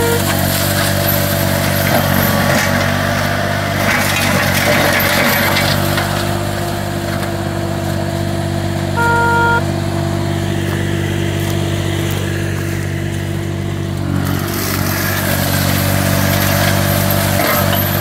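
Green Climber LV600 remote-controlled slope mower's Kohler engine running steadily under load while its mulching head shreds heavy brush, the shredding noise swelling and easing as it bites in. A short beep sounds about halfway through.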